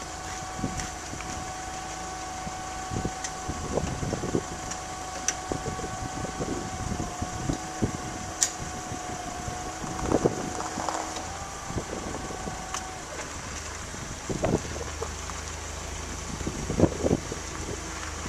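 Forklift engine running while it lifts a truck frame by a chain. A steady whine stops about two-thirds of the way through, and scattered metal knocks come as the frame tips up.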